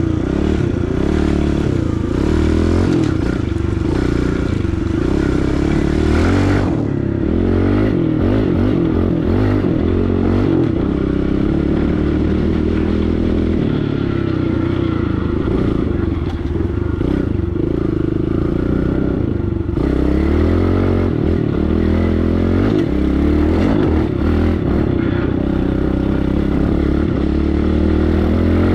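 Pit bike engine running as it is ridden, its pitch rising and falling as the throttle is opened and eased off.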